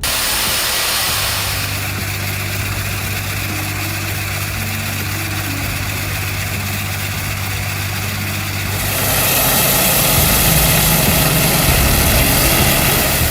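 A heavy machine's engine running steadily with a low hum. From about nine seconds in, a louder hissing noise rises over it.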